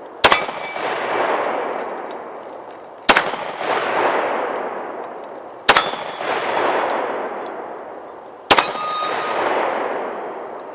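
Four gunshots fired about every two and a half to three seconds, each sharp crack followed by a long echo that fades away. After some of the shots there is a faint ring of struck steel targets.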